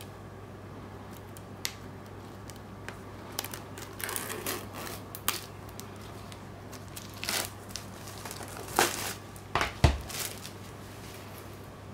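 Plastic shrink wrap on a Blu-ray case crinkling and tearing in several short bursts with scattered clicks. Near the end a knock sounds as the case is set down on a hard surface.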